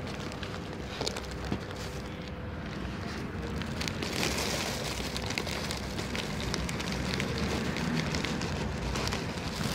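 Thin plastic bag crinkling as dry cat kibble is shaken out of it onto another plastic bag, with many small clicks of the pellets landing. Louder and brighter from about four seconds in.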